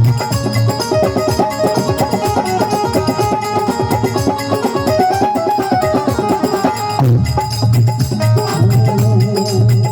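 Instrumental interlude of a Rajasthani devotional folk song: a melody line over steady tabla-style hand-drum rhythm, with the heavy drum beats dropping out briefly and coming back in about seven seconds in.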